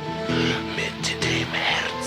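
Background music: a melody of short notes stepping from pitch to pitch.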